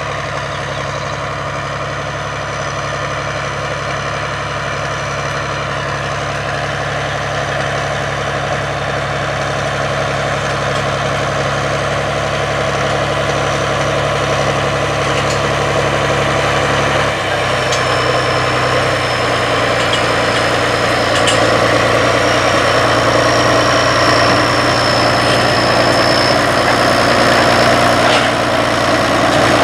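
John Deere 4620 tractor's six-cylinder turbocharged diesel running steadily under load as it pulls a 12-row planter, growing gradually louder as it approaches. A thin high whine comes in over the second half.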